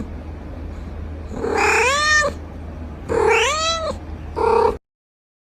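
Domestic cat meowing three times: two long calls that rise and fall in pitch, then a short one, over a steady low hum. The sound cuts off suddenly just after the third call.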